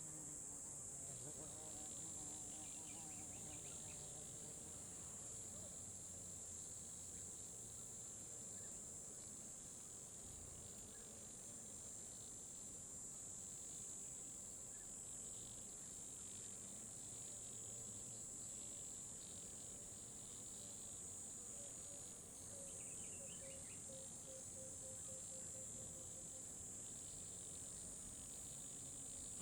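Faint, steady, high-pitched chirring of insects.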